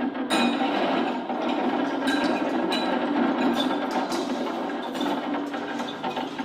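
Experimental percussion music: a dense, continuous clatter of small wooden knocks and clicks, with a few ringing tones held over it.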